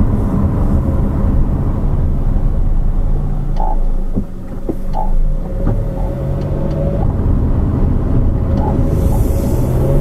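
Low, steady road and drivetrain rumble of a 2013 Honda CR-V AWD on the move, picked up from inside the car close to the rear differential, with a steady low hum and a few faint short ticks.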